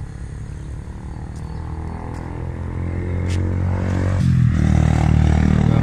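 Engine of a passing motor vehicle, growing louder over the last couple of seconds as it draws close.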